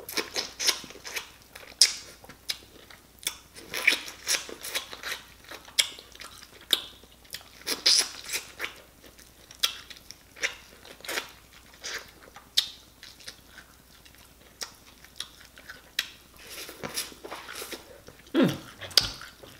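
Close-miked eating: biting and chewing corn on the cob dipped in seafood sauce, a run of irregular sharp mouth clicks, several a second. A short low hum near the end.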